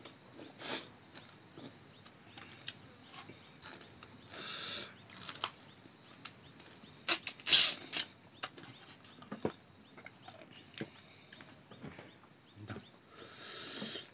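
Two people eating by hand: irregular chewing and mouth sounds with small bites and clicks, loudest about halfway through. A steady high hiss runs underneath.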